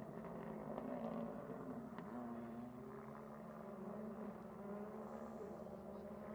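Rally car engine running, a steady note that rises and falls slightly in pitch.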